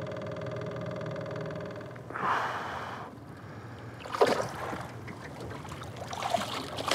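Outboard motor idling steadily, fading out after about two seconds, followed by water splashing as a hooked payara thrashes at the surface beside the boat and is grabbed by hand. The sharpest, loudest splash comes just after four seconds, with more splashing near the end.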